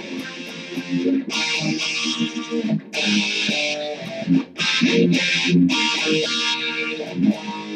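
Electric guitar playing: picked single notes and riffs, broken several times by short bursts of strummed chords.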